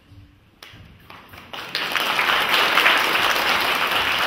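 Audience applause: a few scattered claps at first, then the whole audience clapping steadily from about a second and a half in.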